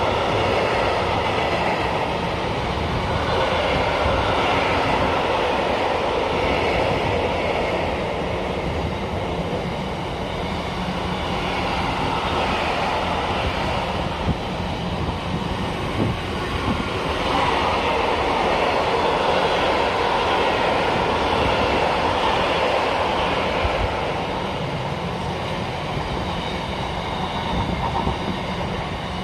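Freight train of container flat wagons rolling past at speed: a steady loud rumble of wheels on rail, with a few sharp knocks midway.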